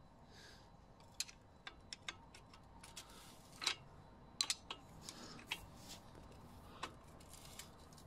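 Light metallic clicks and clinks of a flat steel spanner being handled and fitted onto a bicycle's bottom-bracket cup, scattered and irregular, with a few louder ones around the middle.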